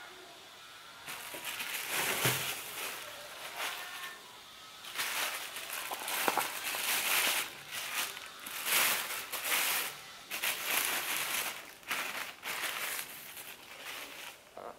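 Thin black plastic carrier bag crinkling and rustling in irregular bursts as hands pull it open and off a plastic seedling tray.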